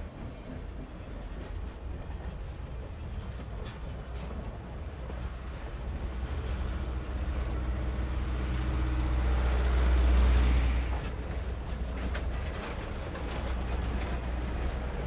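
Steam excursion train's passenger coaches rolling slowly past close by, steel wheels rumbling on the rails. The rumble swells to its loudest about ten seconds in, then eases.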